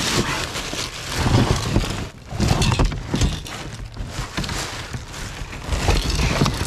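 Rummaging by hand through rubbish in a bin: plastic bags crinkling and rustling, with irregular knocks and scrapes as loose items are shifted about.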